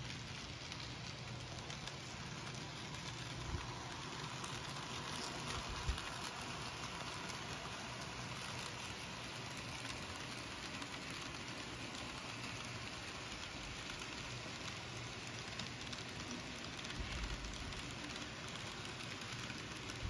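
N scale model freight train rolling along the track: a steady, rain-like rattle of small metal wheels, with a few faint clicks.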